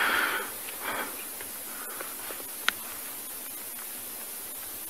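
Steady high-pitched hiss of outdoor bush ambience at a waterhole, with a single sharp click a little under three seconds in.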